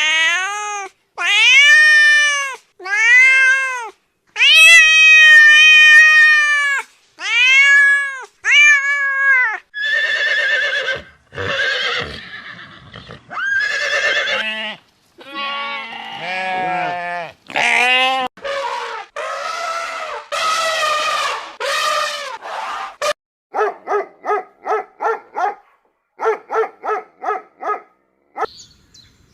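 Farm animals calling: a run of drawn-out, bleat-like calls about a second each, then rougher wavering calls, and near the end quick stuttering calls of about six a second.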